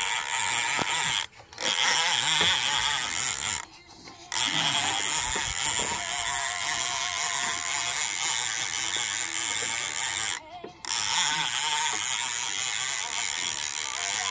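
Fishing reel's drag buzzing as a hooked shark pulls line off it. The buzz runs in long stretches and stops briefly three times: about one and a half, four and ten and a half seconds in.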